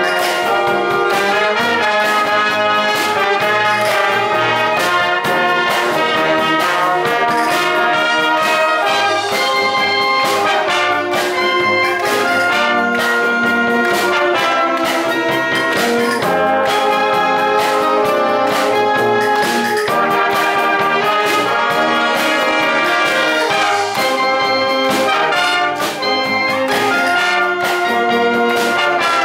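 Wind band playing a piece with brass to the fore and a steady beat.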